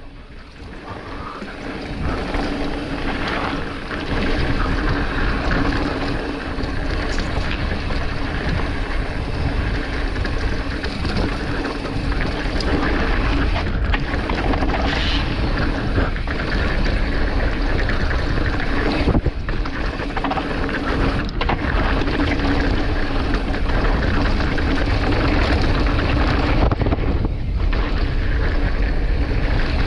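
Mountain bike riding fast down a bike-park trail: steady wind rush on the microphone over a low, continuous rumble from the ride. It builds over the first couple of seconds, then holds steady.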